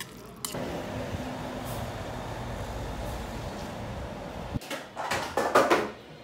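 Outdoor street ambience: a steady low rumble of traffic and air that stops abruptly. Near the end come a few loud knocks and clatters.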